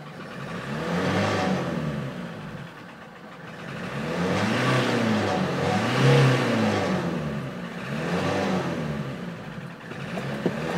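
The 2.8-litre turbo-diesel engine of a 2007 Santana PS10 pickup, heard from inside the cab, revved while standing still. Its pitch rises and falls about four times, up to roughly 3,000 rpm, then settles back toward idle.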